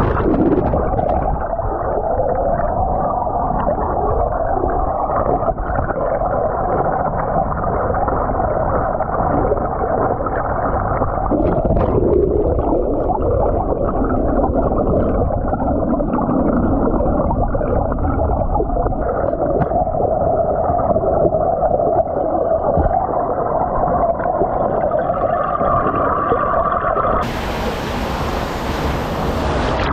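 Fast stream water rushing and churning over rocks, heard with the microphone underwater: a steady, muffled gurgling wash with the high end cut off. About three seconds before the end the microphone comes above the surface and the rush turns suddenly bright and hissy.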